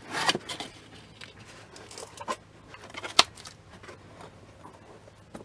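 Packaging being opened by hand: a short rustling scrape at the start, then scattered light clicks and one sharp snap about three seconds in.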